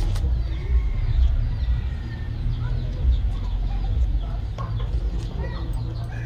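Chickens clucking faintly over a steady low rumble.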